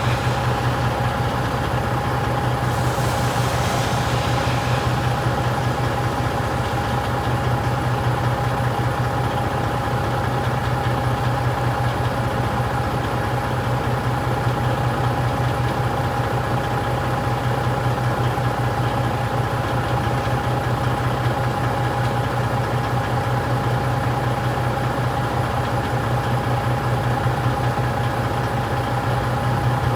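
Truck engine idling steadily, with a steady high-pitched hum over it and a brief hiss about three seconds in.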